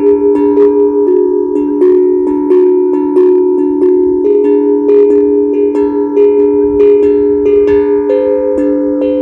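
HAPI steel tongue drum being played, about three strikes a second, each note ringing on and overlapping the next while the melody steps between a few pitches.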